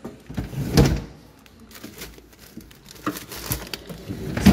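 Refrigerator freezer drawer pulled open and pushed shut, with plastic zip-lock bag handling and a few knocks: a loud knock about a second in, smaller clatter around three seconds in, and another loud knock at the end.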